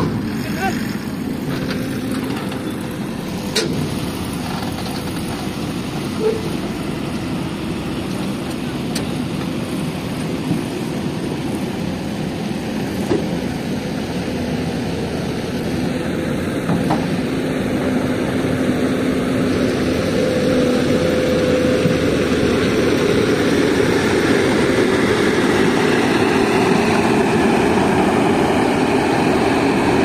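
Heavy diesel engines running steadily: a trailer truck loaded with a concrete girder driving through deep mud and a tracked excavator working beside it, growing louder near the end. A few sharp knocks come through over the engine noise.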